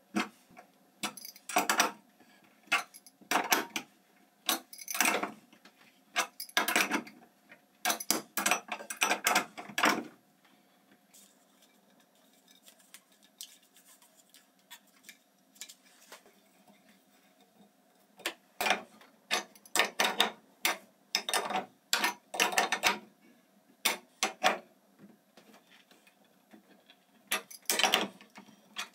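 Metal wrenches clicking and clinking on brass fittings as pressure gauges are tightened into their brass blocks. The clicks come in quick runs, with a lull of several seconds in the middle.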